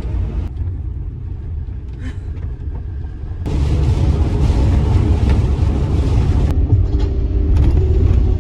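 Van driving: a steady low engine and road rumble, joined about three and a half seconds in by a louder hiss of road and tyre noise.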